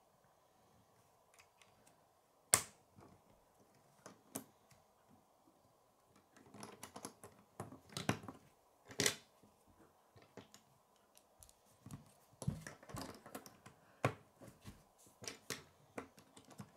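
Plastic K'nex connectors and rods clicking and snapping together as they are fitted by hand. Scattered sharp clicks, the loudest about two and a half seconds in, with busier runs of small clicks in the middle and near the end.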